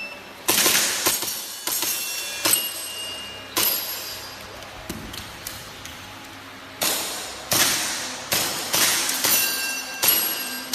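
Tanfoglio Stock III 9 mm pistol being fired, about ten single shots with a short ringing after each. The shots come in two strings, with a pause of about three seconds between them.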